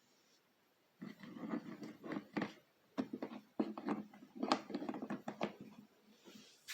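Hands handling a portable gas generator's plastic casing: a run of short clicks and knocks that starts about a second in and goes on for about five seconds, with the engine not running.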